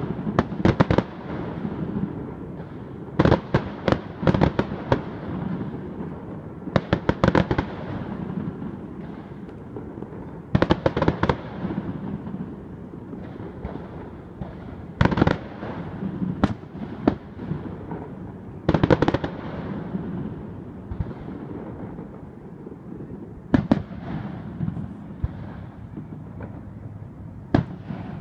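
Aerial fireworks bursting: groups of sharp bangs every few seconds, with a low rumble between them.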